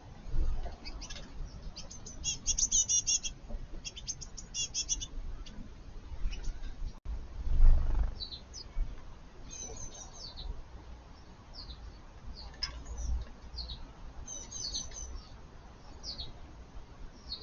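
Small garden birds chirping and calling: quick runs of rapidly repeated high chirps, then scattered short downward-sliding calls, with a brief low rumble about halfway through.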